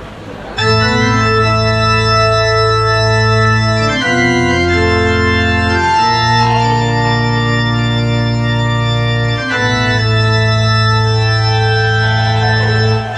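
Keyboard playing held organ chords as the intro of a live rock song, starting about half a second in and changing chord every two to four seconds, with no drums yet.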